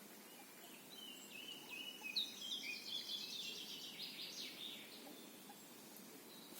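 A songbird singing one long, varied phrase of quick chirps and trills, starting about a second in and lasting about four seconds, over a faint steady background hiss.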